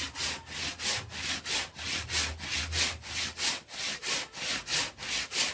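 Hand saw cutting through a kakawate (Gliricidia) log for firewood, a steady back-and-forth rasp of about three strokes a second.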